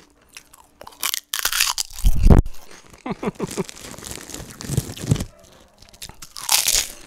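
Close-miked crunching and chewing of a crispy fried snack: a sharp crunch about a second in, a loud bite at about two seconds, and another crunch near the end.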